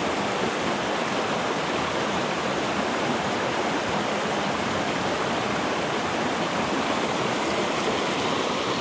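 Mountain river rushing over rocks and small rapids: a steady, even rush of white water.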